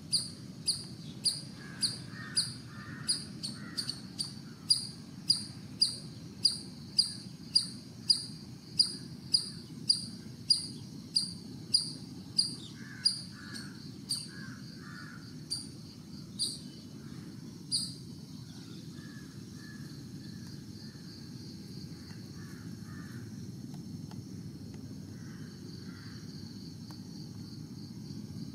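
An insect, likely a cricket, chirping loudly and close by in a steady rhythm of about two short high chirps a second; the rhythm grows irregular about halfway through and stops about two-thirds of the way in. Fainter, lower chirping calls come and go over a low steady rumble.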